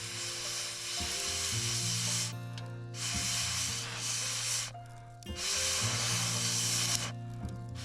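Food sizzling in a frying pan, coming in stretches of a second or two with short breaks, over background music with sustained bass notes.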